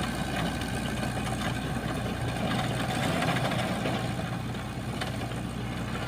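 Komatsu PC78 mini excavator's diesel engine running at a steady idle, with a light click about five seconds in.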